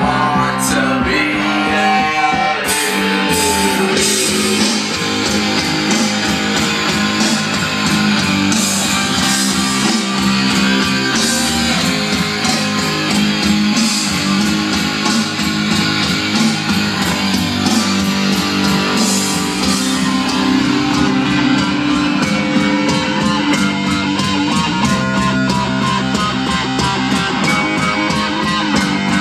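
Music led by strummed guitar, playing steadily throughout.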